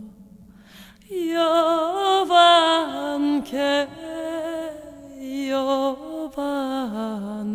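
Background music: a slow, chant-like sung melody of long held notes with vibrato over a low steady drone, the voice coming in about a second in after a short pause.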